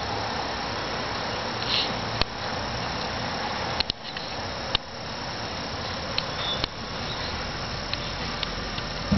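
A cat chewing shredded chicken off a plastic lid, with a few small clicks and smacks over a steady hiss.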